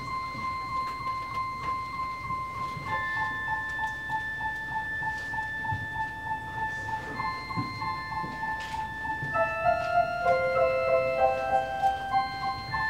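Live experimental ensemble music. A high note is repeated in a steady pulse over sustained tones and steps down in pitch about three seconds in. Near the end several more held notes join and the music grows louder.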